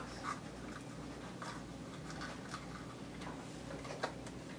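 Faint, irregular small clicks and rustles of presents and packaging being handled, over a low steady room hum.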